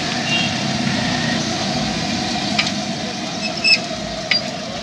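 Food frying on a large flat iron griddle over a steady low rumble, with a few sharp metallic clinks of a metal spatula, the loudest a little under four seconds in.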